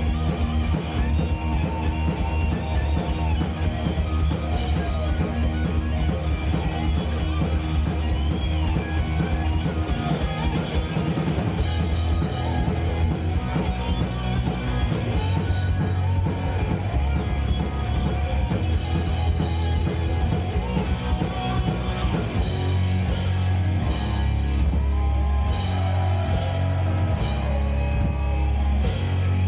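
Live hard rock band playing: distorted electric guitars, bass guitar and a drum kit, loud and steady throughout.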